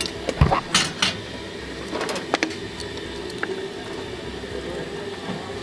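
Steady background hum of a busy food stall, with a heavy knock and two short hisses about a second in and a few sharper clicks a little later.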